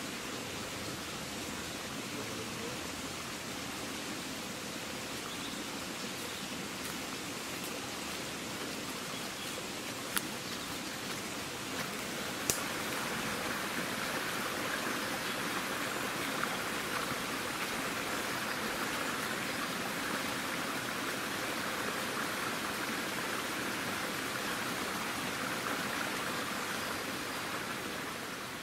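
Steady rushing of a woodland stream, an even hiss that gets a little louder about twelve seconds in, with a couple of brief sharp clicks around then.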